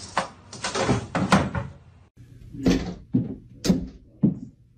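A cat jumping up at a glass-panelled front door and hitting it: a run of thuds against the door, about half a second apart, in the second half.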